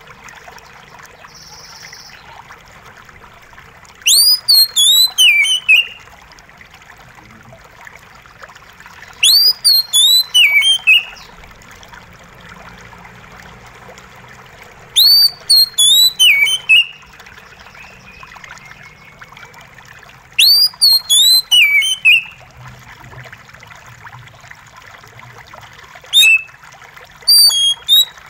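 Oriental magpie-robin singing loud whistled phrases, five in all, each a quick run of gliding notes, one about every five to six seconds. Water trickles steadily underneath.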